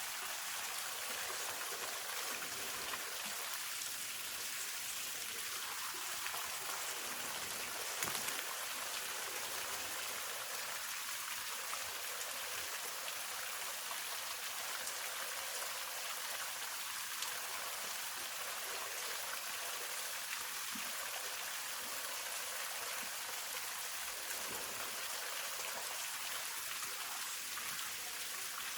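Hongryu Falls, a waterfall, pouring steadily: an even hiss of falling water, strongest in the upper range, with gentle swells and a faint tap about eight seconds in.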